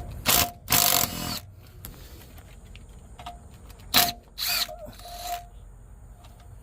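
Cordless power wrench run in short bursts, loosening bolts: two bursts about a second in, then three more about four to five seconds in.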